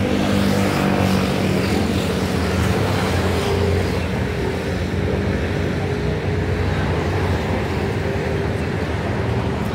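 Road traffic: vehicle engines running by in a steady hum, with wind rumbling on the microphone.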